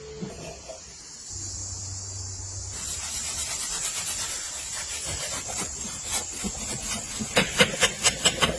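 Quick repeated scraping strokes, like a tool being worked back and forth across a surface, becoming sharper and louder near the end.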